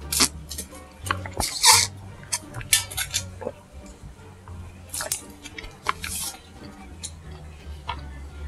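Boba milk tea being slurped through a plastic straw: several short sucking slurps, with small clicks as the drink and tapioca pearls are drawn up.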